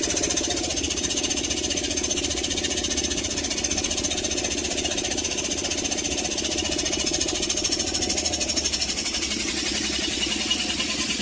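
Cecotec Bolero Dresscode 7410 front-loading washing machine running with a loud, fast, steady rattle.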